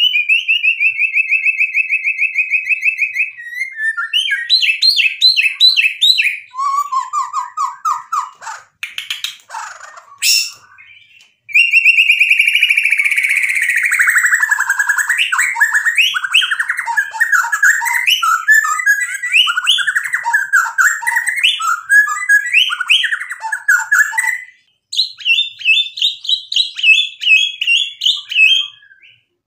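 Male white-rumped shama singing a long, varied song of rapid trills, whistles and chattering phrases, loaded with mimicked calls of other birds. The song breaks off for a couple of seconds about nine seconds in, then runs on.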